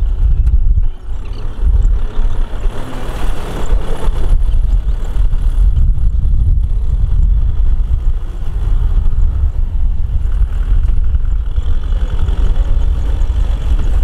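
Diesel farm tractor engine running under load as it drags a disc plough through a muddy rice paddy, its low rumble swelling a few seconds in.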